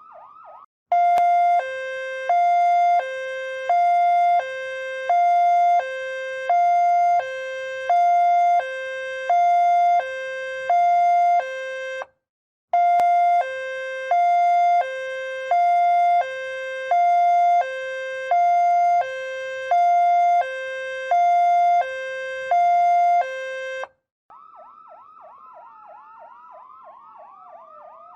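Ambulance sirens. A loud two-tone hi-lo siren alternates between a higher and a lower note, each held about half a second, in two runs of about eleven seconds. A short break with a click separates the runs. Near the end a quieter siren starts wailing slowly up and down.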